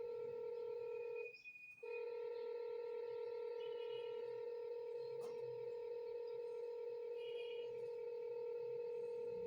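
Satellite finder meter sounding a steady electronic tone, with a brief break a little over a second in; the unbroken tone shows the dish is picking up the satellite signal.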